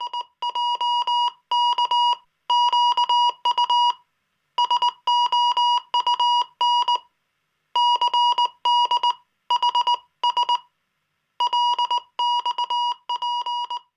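Electronic beep tone, one steady high pitch, keyed on and off in short and long beeps that fall into groups separated by pauses of about half a second to a second.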